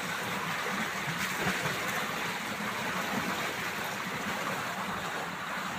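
Water running steadily from a hose into a concrete tank, a continuous even rush.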